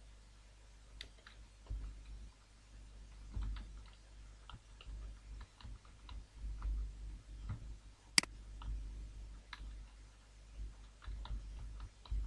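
Computer keyboard typing: single keystrokes and clicks at an uneven, unhurried pace, one sharper click about eight seconds in, over a faint low hum.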